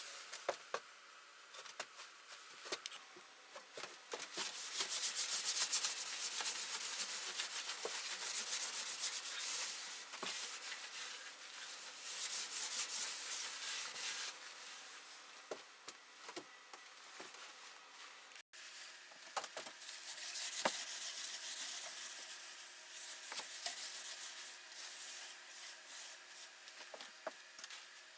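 Stain being rubbed into the dry wood of an old chest, a dry hissing scrub in stretches of a few seconds with pauses between, and small knocks and clicks scattered through.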